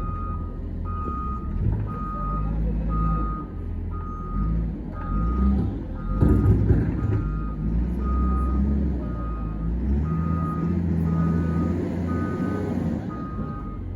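Bulldozer's diesel engine running under load with its reversing alarm beeping steadily, about one and a half beeps a second. A loud clattering burst comes about six seconds in.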